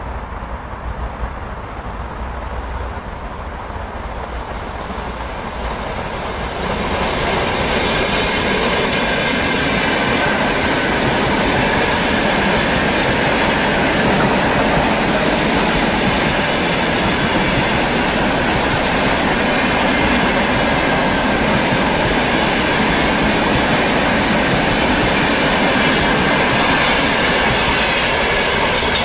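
EM2 ten-car electric multiple unit, rebuilt from an ER2, passing close by at speed. A distant rumble grows and then turns into loud, steady wheel-and-rail noise about seven seconds in, which holds as the cars run past.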